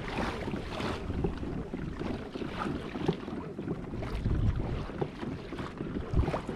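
Wind rumbling on the microphone in uneven gusts, with a few light knocks.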